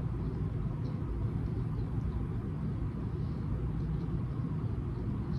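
A steady low rumble throughout, with a few faint soft clicks from closed-mouth chewing of sushi.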